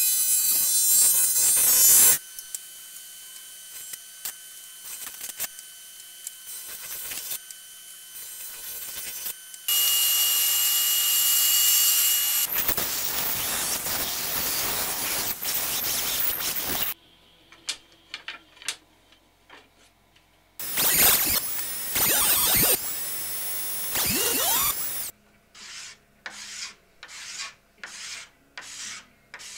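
Woodshop machines in turn: a jointer cutting a board, then a band saw running and cutting, with loud stretches broken by quieter gaps. Near the end, quick repeated strokes of a hand plane on a board, about two a second.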